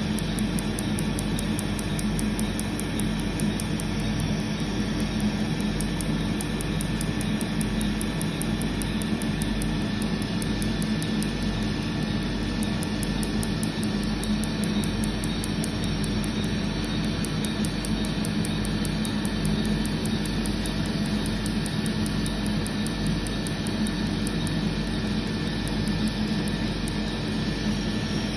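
Tattoo-removal laser handpiece firing in a rapid, even train of sharp high clicks over a steady rush of cooling air and machine hum; the clicks stop near the end.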